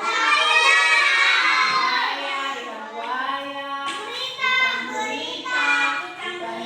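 Children singing together, a sung melody with held notes.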